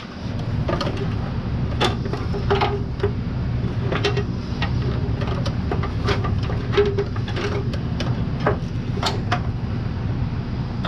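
Irregular light clicks and knocks of hand work on the remote clutch bleeder being mounted at the firewall, over a steady low hum.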